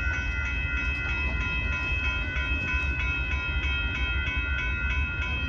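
Railroad grade-crossing bell ringing rapidly and steadily while the crossing gate arms lower, over a low, steady rumble.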